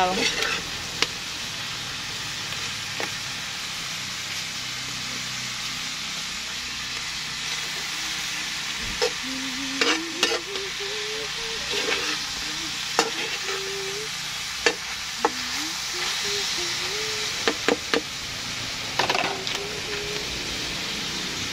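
Green beans and pork sizzling steadily as they stir-fry in a wok, with a metal spatula scraping and clacking against the pan at irregular moments, most often in the second half.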